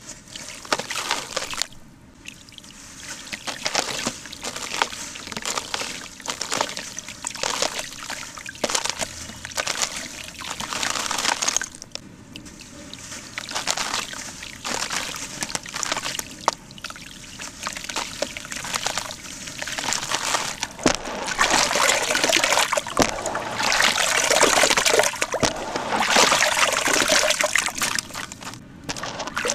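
Hands squeezing and crumbling lumps of reused cement in a plastic tub of water: irregular sloshing, trickling and splashing. It grows busier and louder in the last third.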